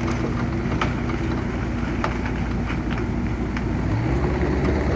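Excavator's diesel engine running steadily, its engine speed rising about four seconds in, with a few sharp metallic clicks.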